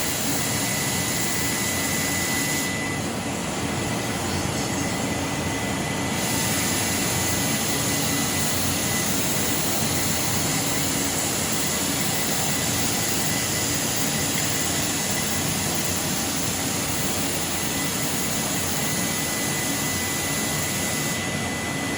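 A 5-axis CNC grinding machine running steadily, a dense rushing noise with a thin steady high whine over it; the highest hiss drops away for a few seconds about three seconds in.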